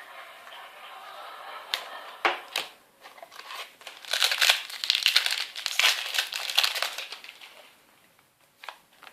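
Foil wrapper of a Yu-Gi-Oh booster pack being torn open and crumpled. There are a few sharp tearing snaps about two seconds in, then several seconds of loud crinkling that dies away near the end.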